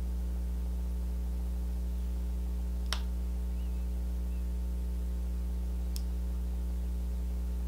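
Steady low electrical hum with a stack of overtones, at an even level throughout, with two faint clicks, one about three seconds in and another about six seconds in.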